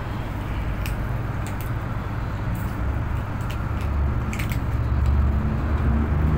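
Low rumble of road traffic on the street, swelling about four seconds in, with scattered small clicks of cats crunching dry kibble.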